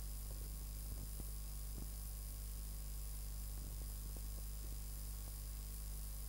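Steady low electrical hum with a thin hiss and faint scattered crackles: mains hum and noise in the recording over a blank stretch with no programme sound.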